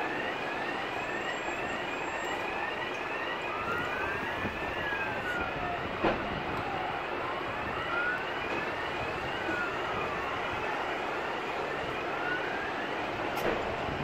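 Emergency-vehicle sirens sounding together over steady traffic noise: a fast yelp of about two rising chirps a second, with a slower wail rising and falling over it. A single sharp knock comes about six seconds in.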